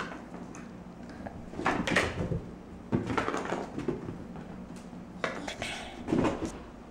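A cat scrambling and pouncing after a toy across the floor: several short bursts of rustling, scuffing and light knocks.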